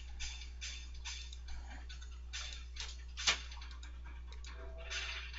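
Faint, irregular clicks of a computer mouse being operated, with one sharper click a little past the middle, over a low steady electrical hum.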